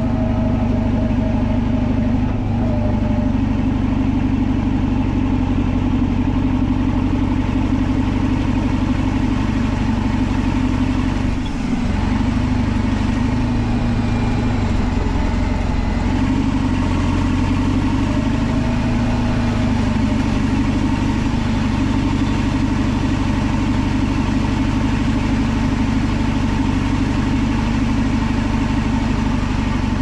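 Caterpillar D11N bulldozer's V8 diesel engine running steadily under load while the blade pushes a pile of soil, with a brief dip about twelve seconds in.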